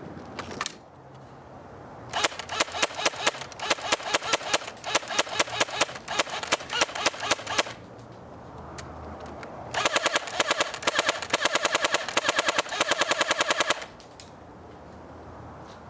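ICS L86A2 LSW airsoft electric gun firing full-auto: two long bursts of rapid, evenly spaced shots, the first about two seconds in lasting some five seconds, the second about ten seconds in lasting some four seconds.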